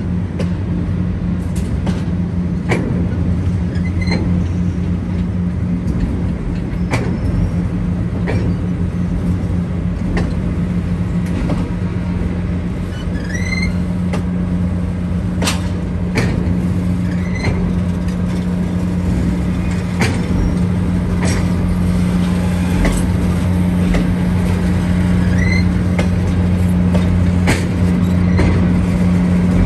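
Diesel-hauled passenger train rolling slowly past, its wheels clicking over the rail joints about once every second and a half over a steady low drone from the locomotive.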